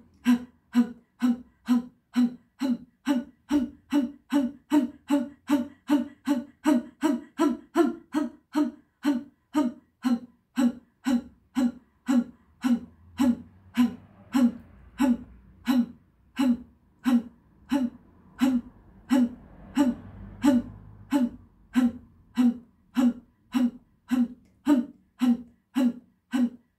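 Kapalabhati pranayama: a woman's rapid, forceful exhalations, about two a second in a steady rhythm. Each is a short sharp puff with a low throaty note.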